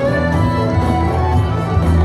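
Music for a traditional Malay dance playing steadily, with held melodic notes over a strong bass.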